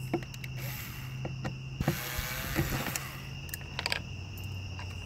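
Small cordless electric screwdriver running as it backs out the screws holding the xenon HID ballast to a BMW E46 headlight housing, a low steady hum that pauses about three seconds in and picks up again slightly lower, with scattered sharp clicks. Crickets chirp steadily in the background.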